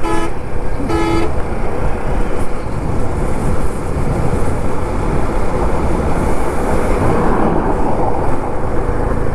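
A vehicle horn tooting twice, two short blasts about a second apart, then the steady rush of wind and road noise from a motorcycle riding at speed.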